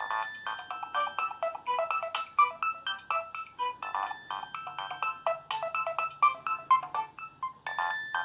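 A Nokia 6225 mobile phone playing one of its preloaded ringtones: a quick electronic melody of short notes, with a phrase that repeats about every four seconds. A low bass line joins about four seconds in.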